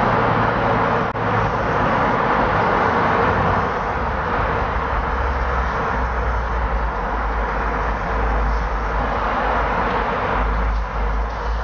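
Steady road and engine noise heard from inside a moving car driving through a road tunnel: a rush of tyres and wind over a low engine drone, with a brief dip about a second in.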